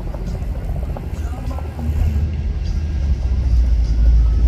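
Helicopter rotors beating as a low, chopping rumble that grows louder about two seconds in as the helicopter approaches.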